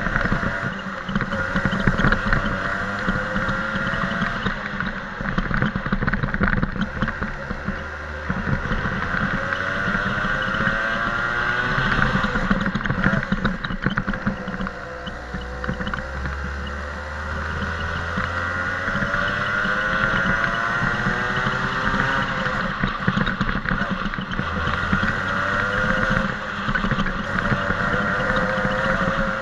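DMAX go-kart engine heard from onboard, its revs climbing in long rises several times and falling back between them as the kart laps the track.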